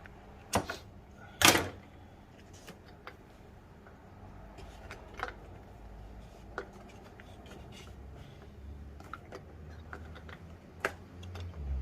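Hands working on a player-piano's pneumatic stack, handling its parts and hoses. There are two sharp knocks about half a second and a second and a half in, the second the loudest, then scattered light clicks and taps.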